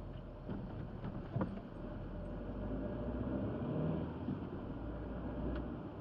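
Car cabin noise picked up by a windscreen dashcam while driving: a steady low engine and road rumble, with a couple of sharp clicks.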